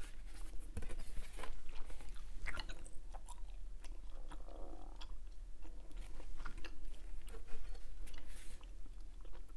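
Hubba Bubba bubble gum being chewed close to a clip-on microphone: irregular clicking, smacking chews, several a second, with no talking.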